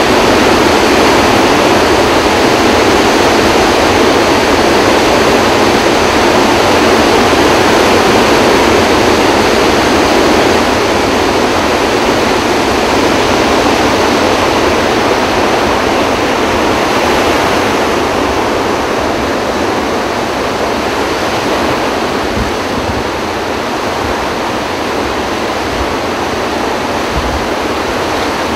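Floodwater rushing out through the open spillway gates of Kaw Dam, a steady loud roar of released water, all eight gates open for a flood release of about 44,000 cubic feet per second. It drops a little in level about ten seconds in.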